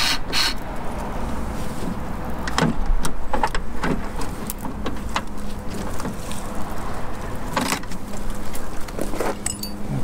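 Scattered clicks and knocks from a car door trim panel and wiring being handled and test-fitted against the door, over steady background noise.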